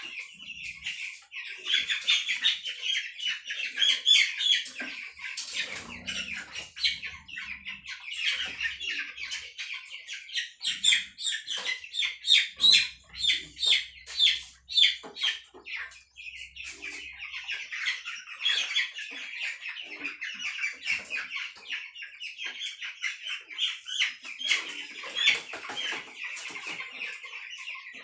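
A flock of broiler chickens peeping and clucking, a dense, continuous chorus of short high calls.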